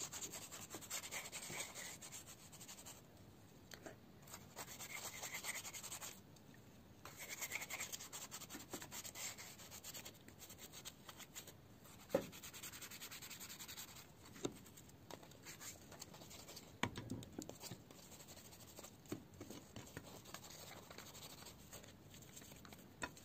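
A toothbrush scrubbing a clear plastic phone case coated in a baking soda and cola paste: faint rubbing and scratching in uneven bursts, with a few light clicks in the second half.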